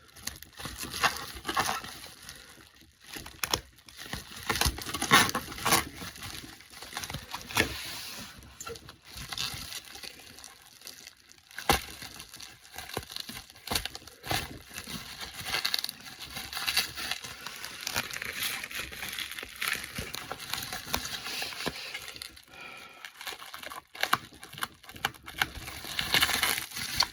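Packaging being handled and unwrapped: irregular crinkling, rustling and crackling, with sharp clicks and brief tearing.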